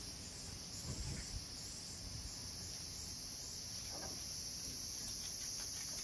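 Steady high-pitched chorus of crickets, with a few faint low knocks about a second in.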